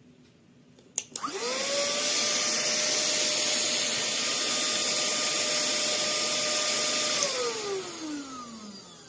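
Cordless handheld mini vacuum cleaner switched on with a click about a second in, its motor whine rising quickly to a steady pitch over a rush of air. It is switched off near the end, and the whine falls away as the motor spins down.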